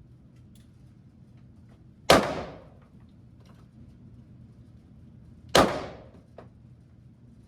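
Two handgun shots about three and a half seconds apart, each a sharp crack with a short echoing tail, followed by a faint click.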